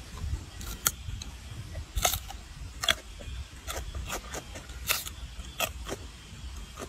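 Rhesus macaque biting and chewing a raw cucumber: irregular crisp crunches, about one a second, over a low rumble.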